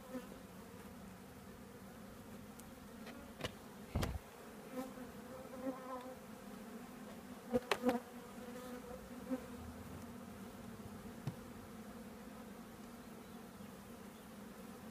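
Honeybees buzzing in a steady hum around an opened hive, the colony stirred up and defensive. A few sharp knocks cut through, the loudest about four seconds in and two close together near eight seconds.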